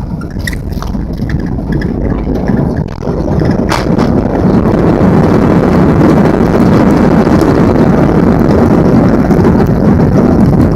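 Boeing 737-400's cabin noise during the landing: a sharp knock about four seconds in as the wheels touch down. Then the CFM56-3 engines' reverse thrust and the rushing air rise to a loud, steady roar.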